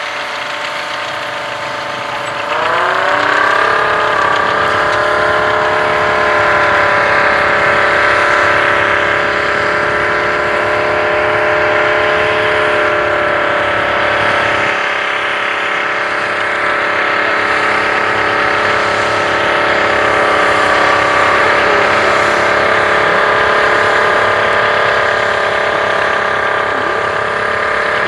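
Wright Earthquake four-wheel-drive tractor's Detroit Diesel engine pulling a 20-bottom plow. About two and a half seconds in it revs up as it takes the load, then runs loud and steady.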